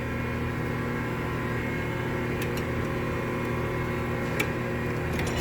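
Steady mechanical hum of shop machinery, several constant tones held level throughout, with a few faint clicks in the second half.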